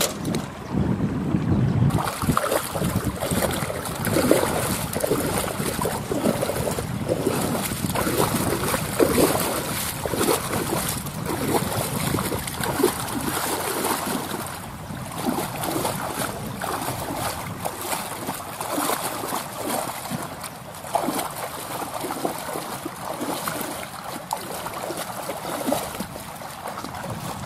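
Shallow water splashing and sloshing in irregular swishes as feet churn the sandy bottom while wading.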